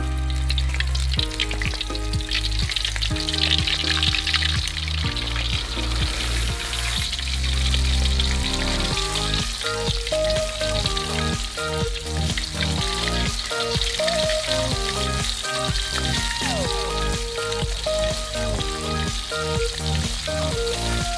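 Flour-coated frogs deep-frying in hot oil, a steady sizzle, with background music over it; the music's beat comes in about nine seconds in.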